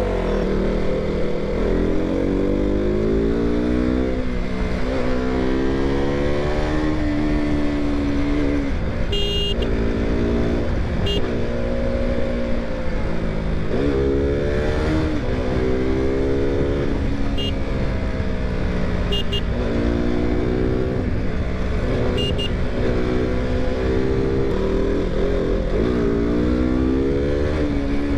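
KTM single-cylinder motorcycle engine under way, its pitch climbing as it accelerates and dropping back at each upshift, about five times over, with steady wind and road noise. A few short, high beeps cut in now and then.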